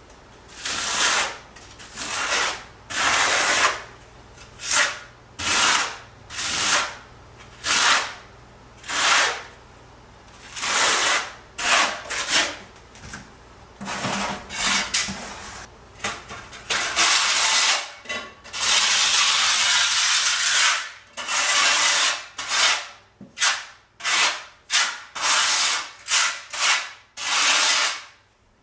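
Notched trowel scraping and spreading tile mortar in repeated strokes, about one a second, with a longer unbroken spread around the middle and quicker strokes near the end.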